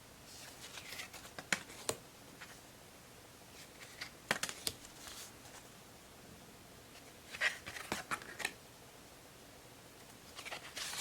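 Thick postcards being handled one after another: short bursts of card sliding and rustling with light taps, in four brief clusters a few seconds apart.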